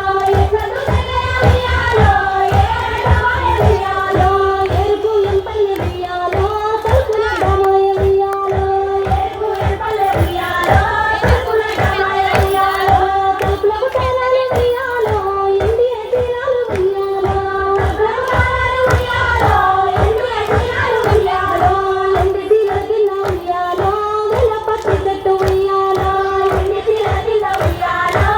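Group of women singing a Telugu Bathukamma folk song together, over steady rhythmic hand-clapping.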